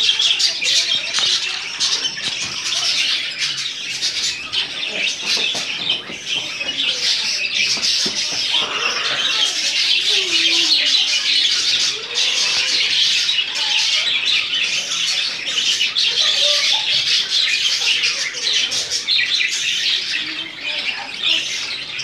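Budgerigars chattering continuously, a dense stream of high chirps and warbles.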